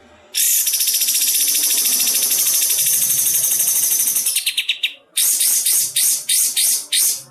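Songbird song played as a masteran training recording: a long, fast, dry, high-pitched trill lasting about four seconds, then a string of about six short, harsh bursts.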